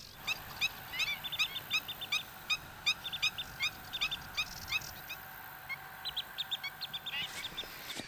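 Black-winged stilts calling: quick runs of short, sharp, high call notes, several a second, with a brief pause about five seconds in before another run.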